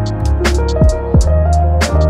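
Background music with a steady drum beat: kick drum and crisp percussion hits over held bass and melody notes.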